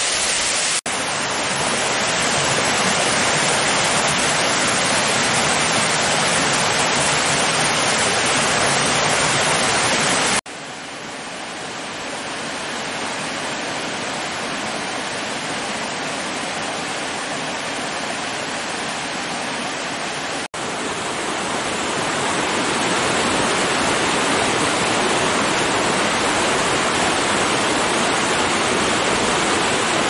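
Waterfall rushing steadily, the water plunging over rock into a pool. The sound dips for an instant about a second in, again at about ten seconds and again at about twenty seconds. Between the second and third dips the rush is quieter and duller: the stream flowing past icicles below the falls.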